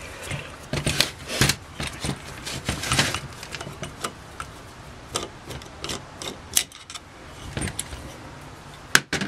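A screwdriver working the main jet out of an Aisan two-barrel carburetor body, with scattered clicks, scrapes and light metal taps of the tool and small parts.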